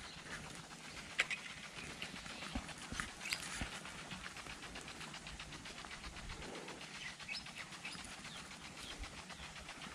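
Faint open-air pond-side ambience with birds calling in the distance, and a few light clicks and taps from a baitcasting rod and reel being handled.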